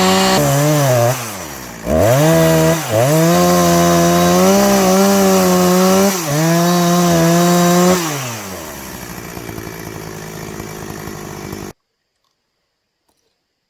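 Husqvarna 359 two-stroke chainsaw at full throttle, ripping a log lengthwise into a board. Its pitch sags under load a few times and recovers. About 8 seconds in it drops back to idle, and the sound cuts off abruptly near the end.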